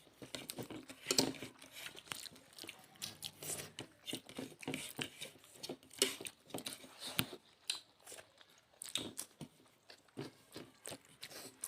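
Close-up eating sounds: a person chewing food, with irregular crunches and wet mouth clicks.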